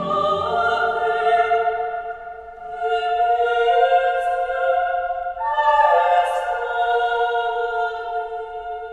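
Several voices singing long held notes together in harmony, in an operatic, choral style. The chord steps to new notes a few times.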